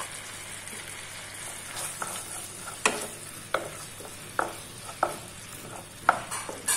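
Wooden spatula stirring chicken pieces through a thick masala gravy in a non-stick pan over a steady sizzle. Short scrapes and knocks of the spatula against the pan come from about two seconds in.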